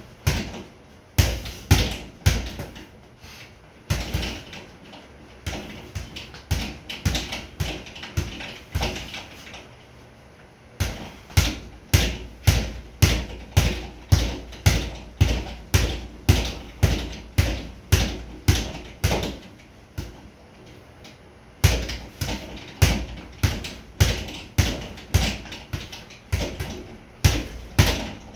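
Boxing gloves hitting a sideways-mounted double-end (kangaroo) bag in runs of quick punches, about two sharp smacks a second, with short pauses about ten seconds in and again near twenty seconds.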